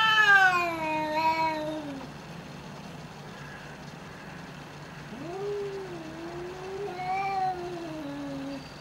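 Domestic cats yowling in an aggressive standoff, the low drawn-out threat yowl before a cat fight. One long yowl rises and then falls away about two seconds in. A second long yowl starts about five seconds in and sinks in pitch near the end.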